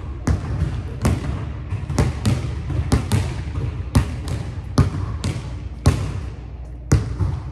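Basketball dribbled on a hardwood gym floor: a string of sharp, unevenly spaced bounces, each echoing in the large hall.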